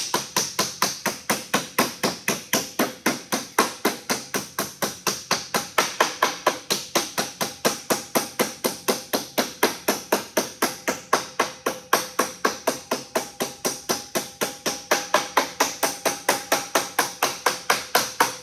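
Rubber mallet tapping lightly and rapidly along a folded hem in 26-gauge galvanized sheet metal clamped under a wooden board, about five even blows a second with a faint ring from the sheet. The hem is being closed over into a teardrop shape, pass by pass across its length.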